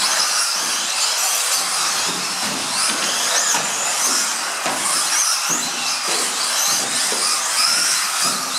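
Several electric RC off-road model cars racing, their motors whining high and rising and falling in pitch with the throttle, over a steady bed of tyre and track noise.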